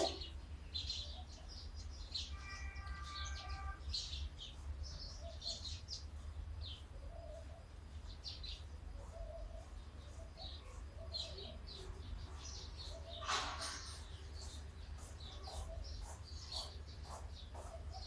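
Small birds chirping: many short, high chirps scattered throughout, over a steady low rumble. A brief held tone sounds about three seconds in, and a short rustle about thirteen seconds in.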